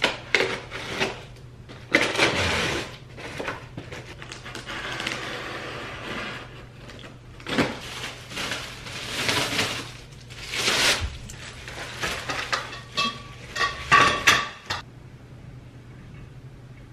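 Unpacking and assembling a SONGMICS metal garment rack: the cardboard box and plastic wrapping rustle and scrape, then the black metal tubes clink and ring against each other as they are fitted together, with the sharpest clinks a few seconds before the end.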